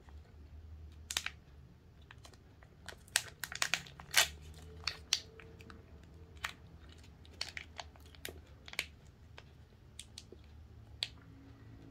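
Crimped plastic candy wrapper crinkling as it is twisted and pulled open by hand. It makes scattered sharp crackles, thickest about three to five seconds in.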